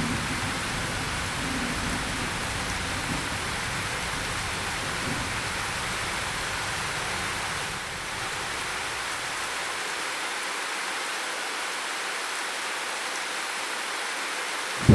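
Steady heavy rain falling, an even hiss, with a low rumble of thunder dying away over the first few seconds.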